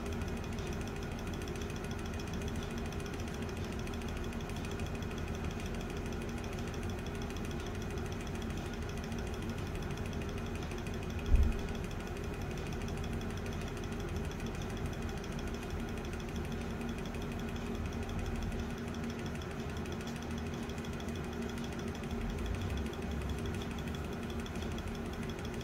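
Seth Thomas pendulum clock movement running on the bench, making a steady, rapid mechanical rattle, with one louder knock about eleven seconds in.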